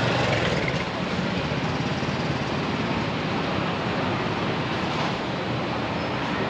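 Steady noise of a busy city street: a continuous wash of sound with a low hum underneath and no distinct events.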